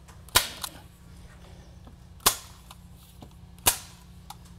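Hand-squeezed manual staple gun firing three times, sharp snaps a second or two apart, as it drives staples through a drywall corner trim's flange into the drywall.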